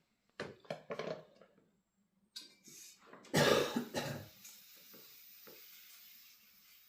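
A person coughing and clearing their throat: a few short coughs about half a second in, then a louder cough a little past the middle.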